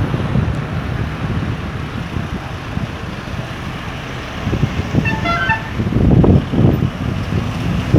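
Street traffic rumbling with wind on the microphone, and a car horn tooting briefly, in quick short pulses, about five seconds in.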